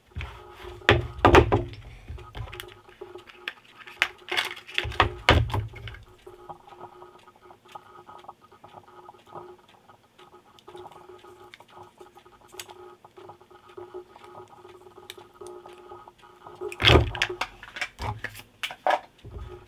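Scattered knocks and thuds of objects being handled, in three clusters: about a second in, around five seconds in, and near the end. Under them runs a faint steady hum.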